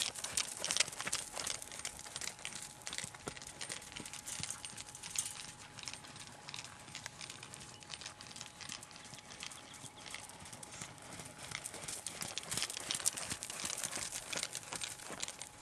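Hoofbeats of a horse trotting on sand arena footing: a quick, uneven patter of soft thuds, a little louder near the end as the horse comes closer.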